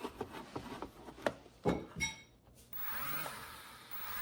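A few sharp clicks and knocks, then about three seconds in a small electric motor starts up with a whine that wavers in pitch and then holds: the toy RC C-17's propeller motors spinning up.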